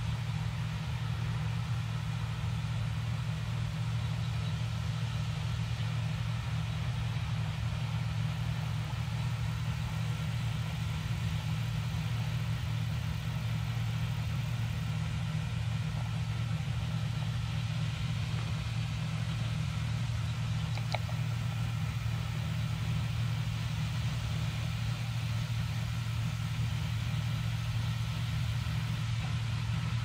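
John Deere combine harvester running steadily while harvesting barley: an even, low engine hum with no change in pace.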